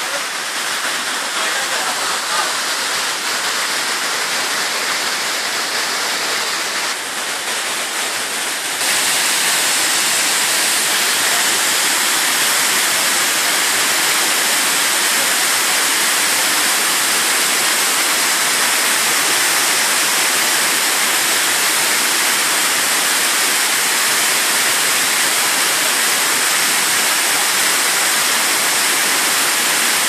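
Waterfall cascading over rock ledges: a loud, steady rush of water that grows louder about nine seconds in and then holds even.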